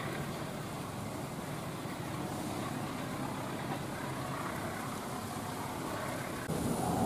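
Steady vehicle noise that gets suddenly louder near the end.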